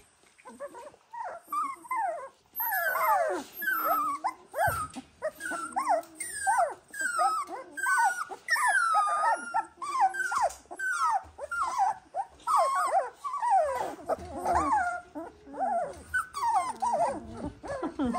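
18-day-old Dalmatian puppies crying: a steady run of short, high, falling whines and squeals, about two a second and overlapping at times, a sign of distress after being moved to a new pen.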